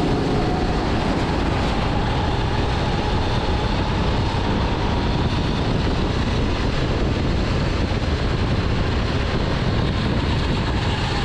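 A Sodi rental kart's engine running hard along a straight, heard from on board, its pitch rising slowly and dropping near the end as the kart slows for a corner. The engine is half buried in steady rushing wind noise.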